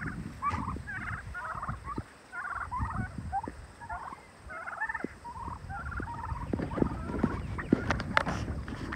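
Domestic turkeys gobbling over and over, one quick warbling call after another with little pause between them. A few sharp knocks come near the end.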